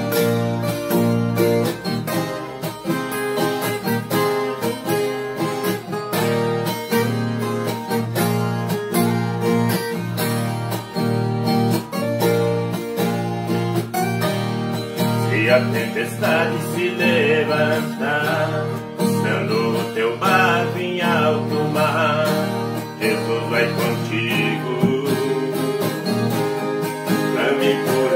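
Two ten-string violas caipiras strumming and picking an instrumental passage of a sertanejo-style song, with voices coming in near the end.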